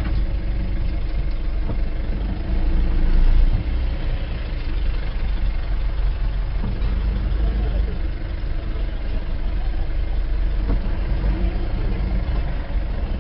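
Vehicle engine running with the steady low rumble of driving along a rough dirt track, heard from inside the vehicle, swelling briefly about three seconds in.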